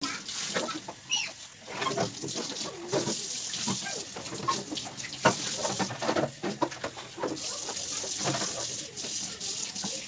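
Kitchen tap running into a stainless steel sink while plastic refrigerator drawers and parts are washed and handled, with frequent irregular knocks and clatter against the sink.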